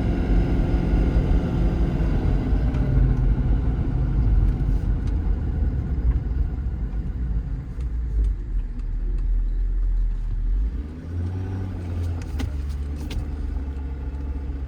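A Ford 6.7 Power Stroke V8 turbo-diesel in a 2018 F-550 running under way on the road, with a steady low rumble from the engine and tyres heard from inside the cab. The engine note shifts lower and the level dips slightly about eleven seconds in.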